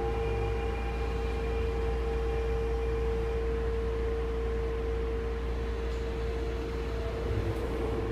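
Tokyo Metro 6000 series train standing at the platform with its doors open, giving a steady electrical hum: one held mid-pitched tone over a constant low rumble. Fainter higher tones fade out about three seconds in.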